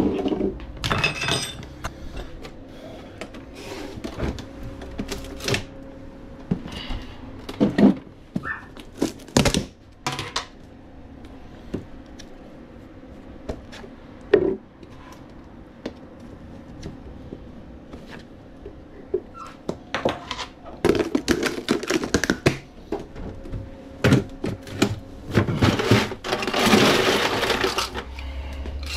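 Kitchen handling sounds while a frappe is made: a blender jug and its lid handled and ice cream scooped into the jug, giving scattered knocks and clatters over a faint steady hum. A louder, denser noisy stretch of about two seconds comes near the end.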